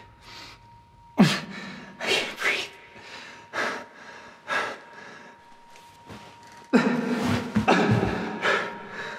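A man gasping for breath during a panic attack: about five sharp gasps spaced a second or so apart, then louder, longer groaning breaths near the end.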